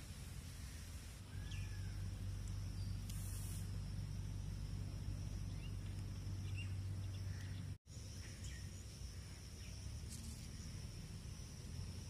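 Outdoor field ambience: a steady, high insect drone with a few short bird chirps over a low rumble. The sound drops out for an instant a little after halfway.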